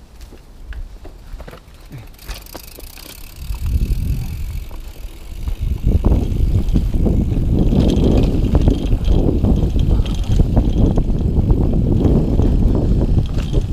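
Mountain bike ridden fast down a dirt trail: tyre rumble and rattling clicks of the bike over the rough ground. Moderate at first, then much louder and denser from about six seconds in.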